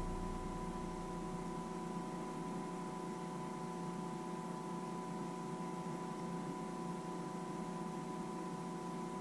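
Steady electrical hum made of several held tones over a faint hiss.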